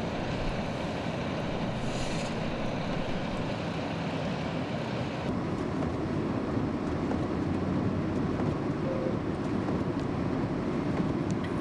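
A vehicle driving on a snow-covered road: a steady rumble of engine and tyre noise.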